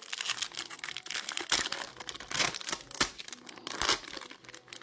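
Foil trading-card pack wrappers being torn open and crinkled, an irregular run of crackles and rips with a few louder tears.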